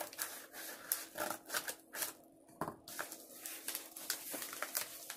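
Scissors snipping through a paper padded mailer, with the paper crinkling and rustling as it is handled; a scattered run of short, sharp snips and rustles.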